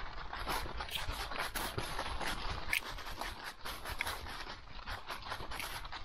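Footsteps and paws crunching and rustling through dry fallen leaves, an uneven run of crackles several times a second.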